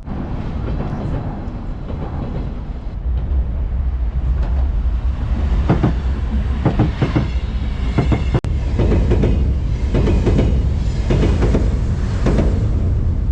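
A rail vehicle passing close by, with a heavy steady rumble and wheels clattering over rail joints in a regular rhythm from about halfway through.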